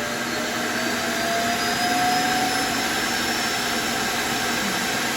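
Roomba robot vacuum's suction motor running very loud and steady, a whine climbing in pitch over the first two seconds and then holding.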